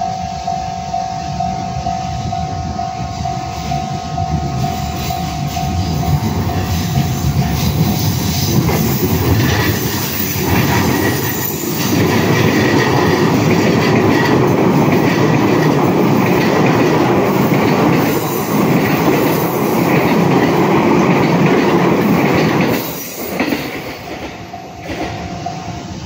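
A Japanese level-crossing warning bell rings steadily, then a JR E233-series electric commuter train passes loudly over the crossing for about fifteen seconds. The train noise drops away sharply near the end.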